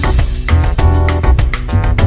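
Background music with a steady drum beat and a strong bass line.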